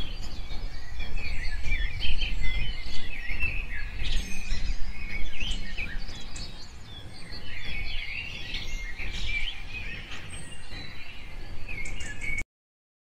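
A dense chorus of many migratory birds chirping together over a low rumble. The sound cuts off abruptly near the end.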